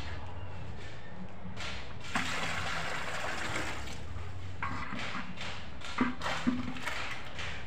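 Water poured from a plastic bucket into a plastic tub, splashing and gushing, heaviest about two to four seconds in. Two short knocks near the end.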